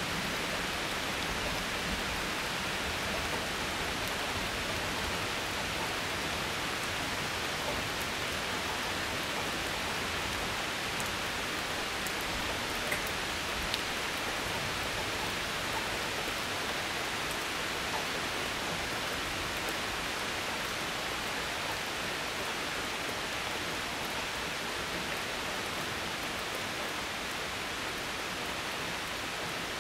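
Steady rain falling, an even hiss that holds at one level throughout, with a couple of faint ticks about halfway through.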